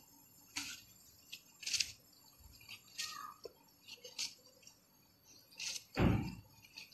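Thin dry rotis being torn and crumpled by hand in a steel tray: short crisp rustles and crackles about once a second, with a louder crunch and thump about six seconds in.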